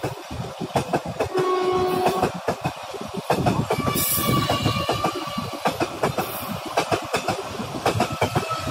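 A local passenger train's coaches rolling past close by, the wheels clattering over the rail joints in a rapid clickety-clack as the train gains speed. A short horn note sounds about a second and a half in, and higher steady tones ring over the clatter midway through and again near the end.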